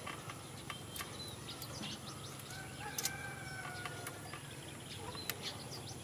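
A few sharp clicks of pliers working on electrical wire, with a faint, drawn-out rooster crow in the distance around the middle.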